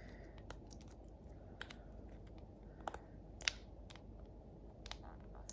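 Small scattered clicks and taps of a replacement iPhone X screen being pressed down into the phone's frame, the loudest about three and a half seconds in.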